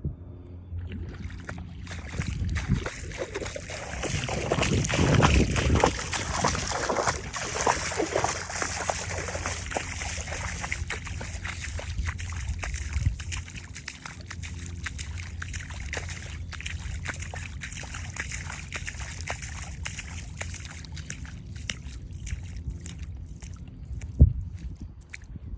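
Seawater sloshing and lapping, with many small clicks and splashes and a steady low rumble. The water is loudest for a few seconds early on, and there is a single sharp knock near the end.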